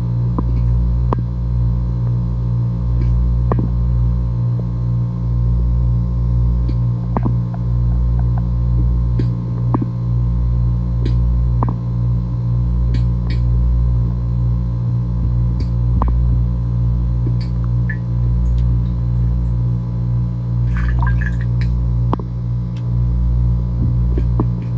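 Steady low electrical hum picked up underwater in a swimming pool, with a slight throb and faint scattered clicks.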